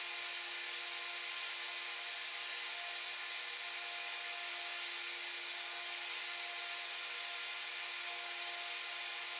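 Steady hiss with a faint steady hum underneath, unchanging throughout, ending in one sharp click.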